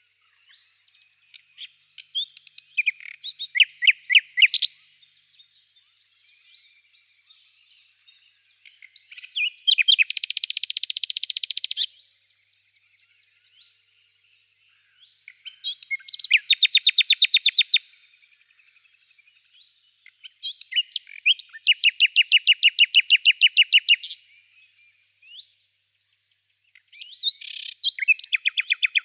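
A songbird singing separate phrases of quickly repeated trilled notes, each phrase a couple of seconds long, with short pauses of a few seconds between them; five phrases in all.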